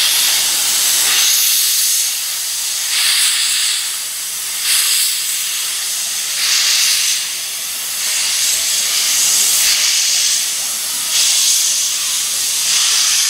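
JNR Class C62 No. 2 steam locomotive moving off slowly with its cylinder drain cocks open, steam hissing loudly and steadily. The hiss swells in surges about every one and a half to two seconds.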